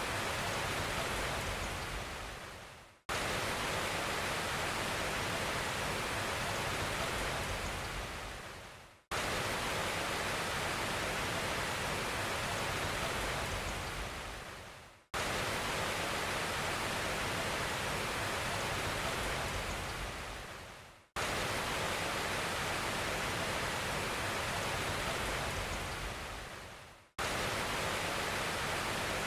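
Steady rushing, hiss-like noise that fades out and then restarts abruptly about every six seconds, like a short noise clip played on a loop.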